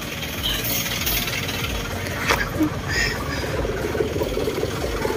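A motor vehicle's engine idling with a steady low pulsing rumble, and a sharp click about two seconds in.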